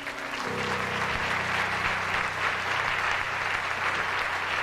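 Audience applauding at the end of a song, swelling over the first second and then holding steady, on a cassette recording of a live concert. The last note of the song dies away about half a second in.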